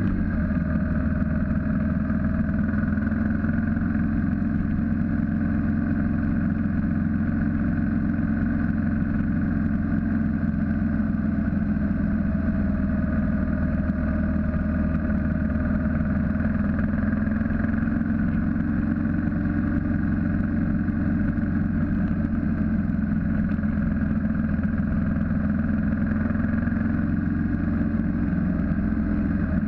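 BMW G650GS single-cylinder motorcycle engine running at a steady cruise, heard from a camera mounted on the bike, with wind and road noise. The engine note holds steady with only slight rises and falls.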